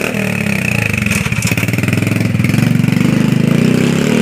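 Honda Future 125 single-cylinder four-stroke engine running loudly through an aftermarket exhaust with its silencer insert removed, revving as the motorcycle pulls away.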